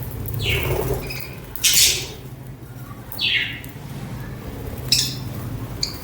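Budgerigars calling: a handful of separate chirps and squawks, two of them sliding down in pitch, the loudest a harsh squawk about two seconds in, with short sharp chirps near the end. A steady low hum runs underneath.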